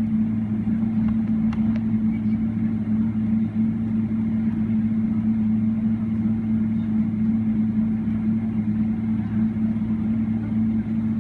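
Cabin noise inside a Boeing 777-300ER taxiing on the ground, its GE90-115B engines at idle, with a steady low hum.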